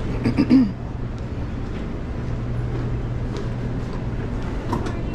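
City street ambience dominated by a steady low engine hum from vehicles, with a brief voice about half a second in and a few faint clicks.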